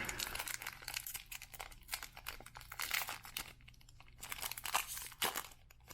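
Wrapper of a Topps 206 baseball card pack crinkling and tearing open, a quick run of crackles that thins out near the end.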